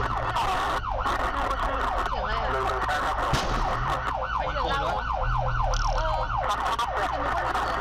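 Rescue vehicle's siren wailing up and down, switching to a fast yelp about four seconds in and then back to a slower wail. Two sharp gunshot cracks cut through it, one about a second in and the other about three seconds in.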